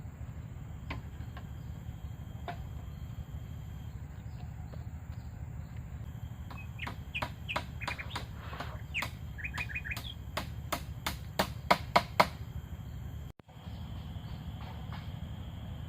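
Rainforest birds chirping over a steady insect hum, with a quick run of sharp knocks or clicks about halfway through, loudest near the end of the run.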